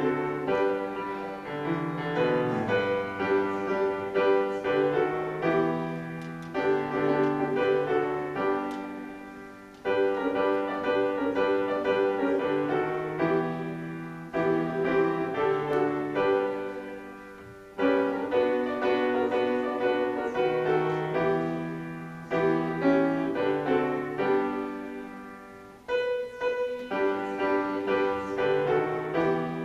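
A grand piano played solo: a slow piece in phrases that each swell and then die away, with a fresh phrase starting about every eight seconds.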